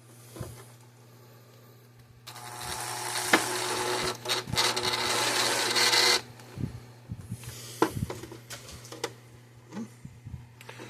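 A small motorised tool runs for about four seconds, starting about two seconds in and stopping suddenly, with handling clicks and knocks before and after.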